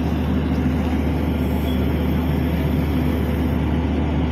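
Engine of a horizontal directional drilling rig running steadily at constant speed, a deep even hum.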